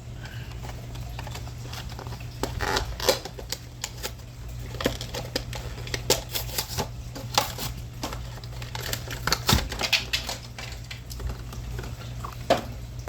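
Die-cast toy car packaging, a cardboard box with a plastic blister, being pried open by hand: irregular crackling, clicks and snaps, over a steady low hum.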